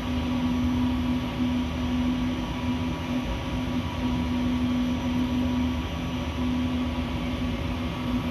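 A steady machine-like hum with one constant low tone and a noisy rumble beneath it, unchanging throughout.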